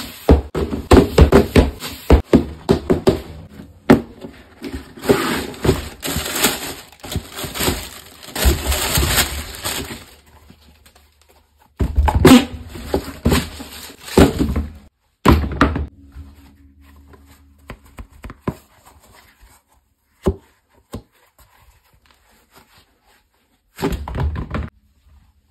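Shoebox unboxing handling sounds: rapid tapping and scratching on the cardboard box and crinkling tissue paper, loud and dense for about the first ten seconds, then loud bursts of rustling and knocks. There are scattered clicks after that, and near the end a short burst as the foam rubber slides are handled.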